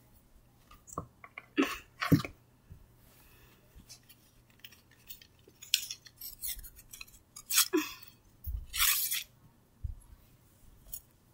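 Handling noises as plush toys and small props are moved about by hand: scattered knocks, light clinks and rustles. They are loudest about two seconds in and again near eight to nine seconds in, where there is a longer rustle.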